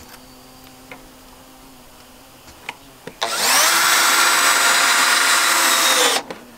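A power drill running steadily for about three seconds from about halfway in. It spins up at the start and cuts off sharply. Before it there are only a faint hum and a few light clicks.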